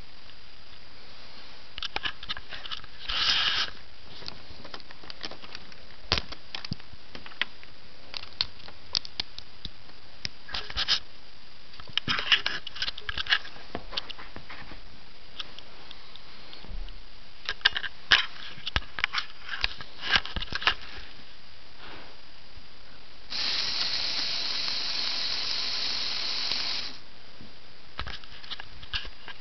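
Scattered light clicks and knocks over a steady hiss, with a few seconds of louder hissing noise near the end.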